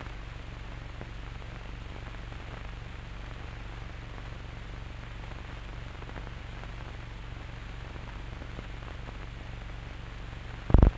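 Surface noise of an old film soundtrack with no commentary: steady hiss with a low hum and faint crackle. A short loud burst comes just before the end.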